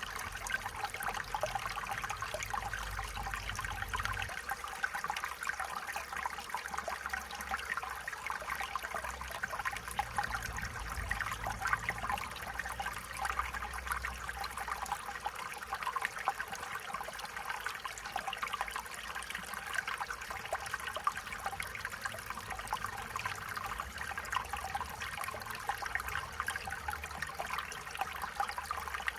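Stream water running and trickling steadily over stones, a constant babbling with many small splashes.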